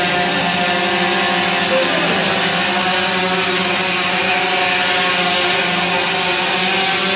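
Quadcopter drone hovering close overhead: the steady, many-toned buzzing whine of its four propellers and motors. The pitch shifts slightly in the first couple of seconds as the motors adjust.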